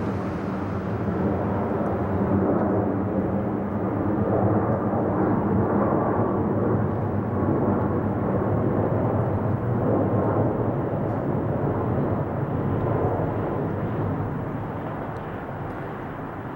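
Jet engine noise from a departing four-engine Airbus A340 at takeoff power: a loud, steady rumble that slowly fades over the last few seconds as the plane moves away.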